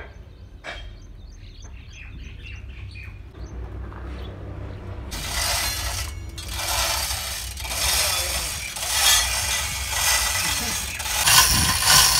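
Faint bird chirps over a low steady hum, then from about five seconds in a loud rushing noise that swells and falls about once a second. Near the end a hand chain hoist ratchets under a raised tipper body as its chain is worked.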